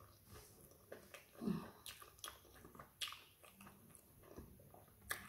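Close-up mouth sounds of someone eating fried plantain: faint chewing and lip smacks with scattered small clicks, the sharpest near the end.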